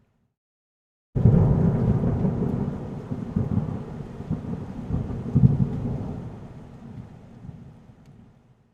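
Heavy storm rain with a deep, surging rumble. It starts abruptly about a second in and fades away near the end.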